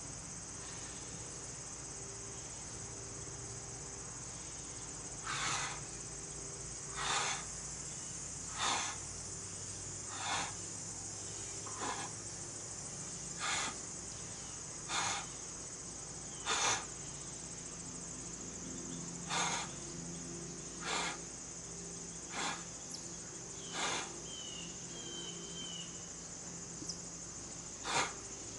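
A man breathes out hard with each push-up, a short puff of breath about every second and a half starting about five seconds in, with a couple of longer pauses. A steady chorus of insects runs underneath.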